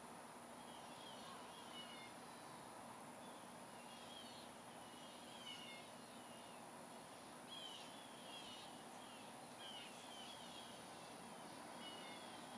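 Faint bird chirps, short phrases repeated every second or so, over a steady background hiss.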